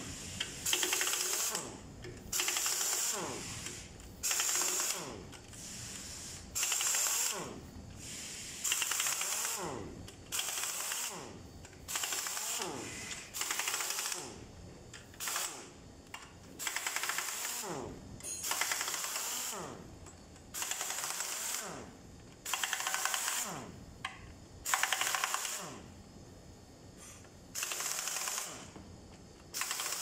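Pneumatic impact wrench run in short bursts every couple of seconds, each a brief burst of hammering that winds down in a falling whine, as it loosens the bolts of a diesel engine's front timing-gear cover.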